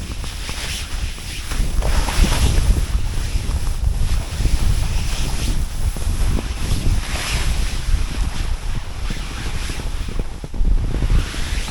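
A snowboard sliding down a snowy slope, its edge scraping across the snow in a swish on each turn, several times, over a heavy rumble of wind on the microphone.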